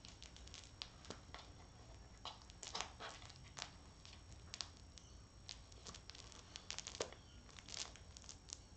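A cat pawing and shoving a plastic ball-track toy on a blanket: scattered faint clicks, scrapes and rustling, busiest near the end.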